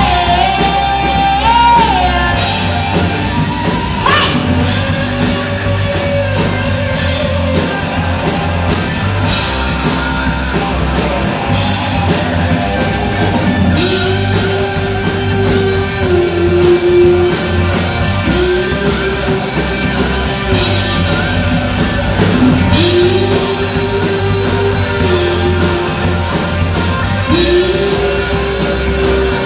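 Live country-rock band playing an instrumental passage: a lead guitar line of held, bent notes in repeated phrases over a steady drum kit and bass.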